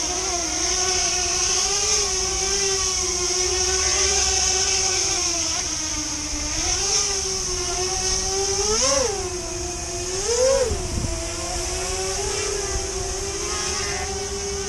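Electric propeller motors of a Fimi Manta tiltrotor VTOL drone lifting off and hovering, a steady buzzing whine. Its pitch surges up and back down a few times, sharpest about nine and ten and a half seconds in. Low wind rumble on the microphone lies beneath.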